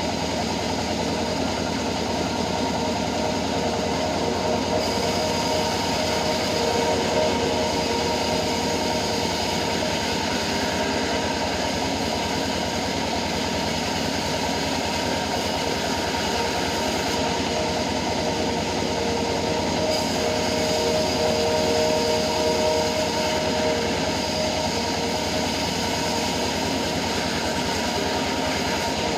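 Sawmill bandsaw, a homemade rig, running steadily with a dense mechanical din. A whining tone swells twice, about a quarter of the way in and again past the middle.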